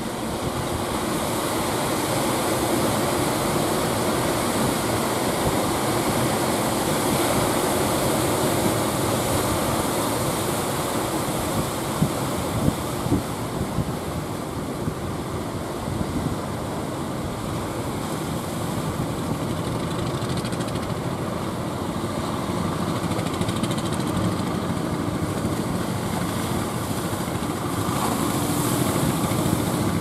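Rough sea surf washing and breaking steadily, with a motorised wooden outrigger fishing boat's engine running under it and wind buffeting the microphone. A few brief sharper splashes come about halfway through.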